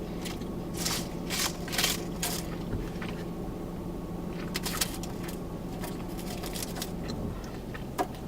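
Close-up chewing and biting of food, with short crunching and crinkling bursts, over a steady low hum.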